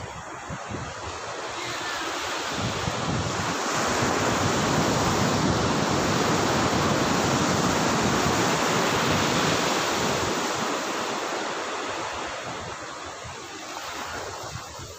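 Ocean surf: a wave breaks and its wash rushes up the sand at the water's edge. The rush builds over the first few seconds, holds, and dies away near the end.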